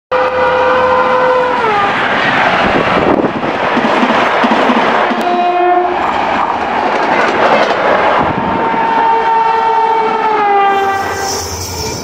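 Indian Railways locomotive horns over the rushing, clattering noise of trains running at speed. One horn is held for about a second and a half and then drops in pitch, a short toot comes about five seconds in, and a long blast runs from about eight to eleven seconds, sagging slightly in pitch.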